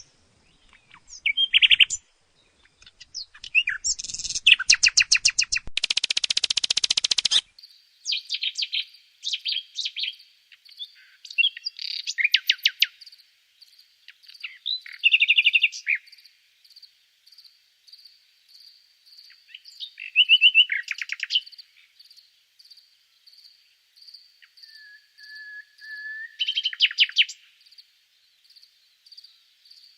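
Common nightingale singing in separate varied phrases of rapid repeated notes and fast trills with short pauses between them, including a long, steady, low whistled note late on. Under it, a faint high note pulses steadily, repeating about one and a half times a second.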